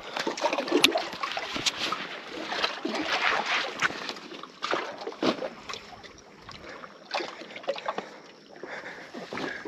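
Water splashing and sloshing close by, with irregular sharp knocks and clicks.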